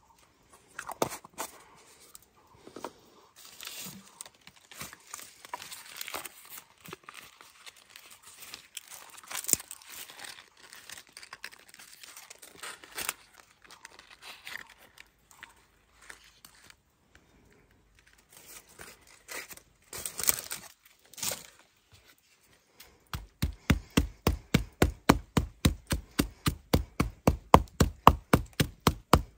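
Irregular rustling, tearing and crinkling of food being prepared by hand, then, about 23 seconds in, a knife chopping steadily on a cutting board at about four strokes a second.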